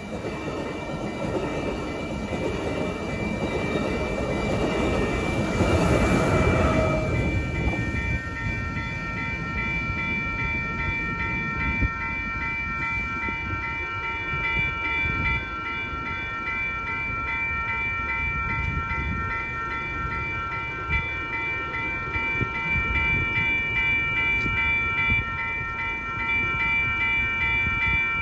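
Amtrak Pacific Surfliner bilevel passenger train passing a grade crossing, its wheels rumbling on the rails, loudest around five to seven seconds in and gone by about eight seconds. The crossing's warning bell keeps ringing steadily after the train has cleared.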